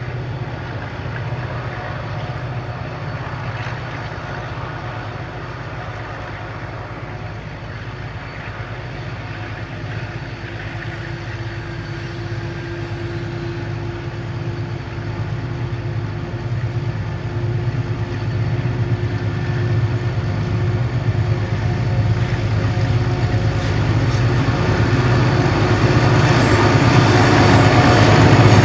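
Diesel-electric locomotives with EMD and ALCO engines working hard to haul a loaded grain train up a grade: a steady low engine drone that grows louder as they approach and pass close by.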